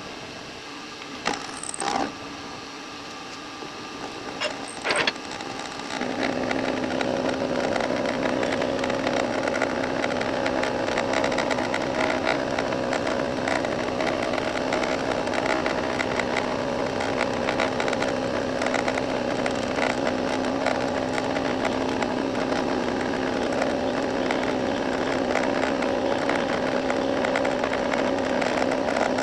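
A few short metallic clinks, then about six seconds in a benchtop milling machine starts a steady running hum that holds: the spindle turning the cutter as it mills the face of a metal part.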